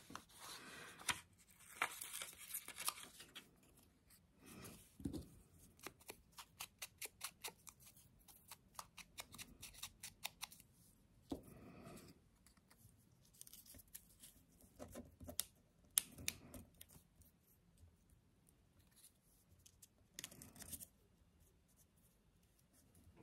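A strip of paper being torn by hand in short little rips, a run of quick faint tearing crackles that are densest and most regular in the middle, with a few rustles of paper between.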